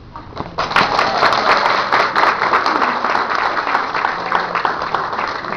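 Audience applause: many people clapping together, starting about half a second in.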